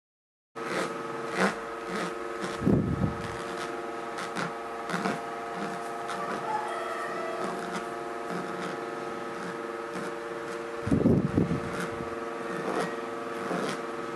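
Foam brush dabbing and rubbing sealer over the resin drills of a diamond painting, heard as soft scattered taps and scrapes, with heavier bumps about three and eleven seconds in. Under it, a steady electrical hum of several held tones starts suddenly about half a second in.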